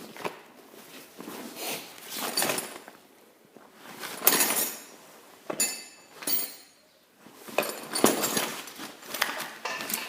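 Hard small objects clinking and rattling in irregular bursts, with a few sharp clicks, as someone rummages through items looking for tweezers.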